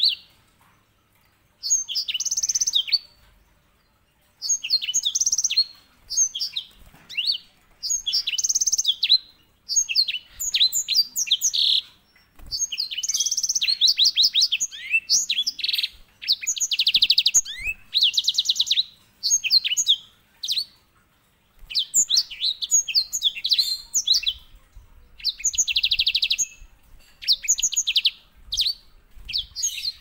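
Grey singing finch (Serinus leucopygius) singing loudly in phrases of one to two seconds separated by short pauses. Several phrases, mostly in the second half, hold fast, even trills: the finch's rolling song.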